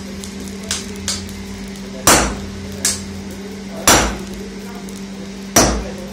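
Hand hammer striking a red-hot iron bar held in tongs on a steel anvil block: three heavy ringing blows about two seconds apart, with a few lighter taps before them. A steady low hum runs underneath.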